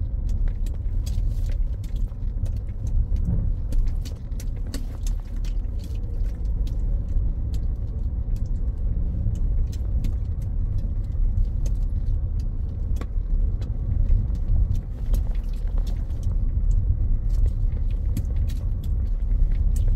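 Inside a car's cabin while it drives over a rough, rutted dirt track: a steady low rumble of tyres and engine, with many small rattles and knocks throughout.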